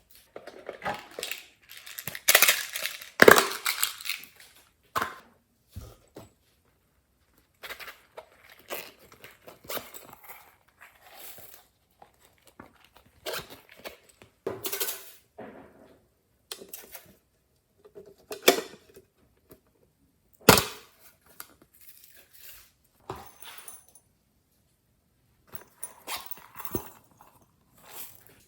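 Glossy slime being squished and pressed by hand, with sticky crackles and sharp air-bubble pops at irregular intervals and short silences between. The loudest squishing comes a few seconds in, and one sharp pop about two-thirds through.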